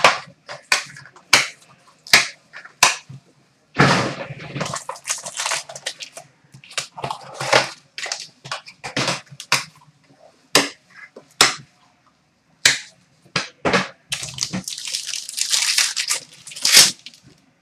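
Panini Dominion hockey card box opened and unpacked by hand: a run of short cardboard taps, knocks and slides, with a longer rustle about four seconds in and a dense rustle near the end as the cards are taken out.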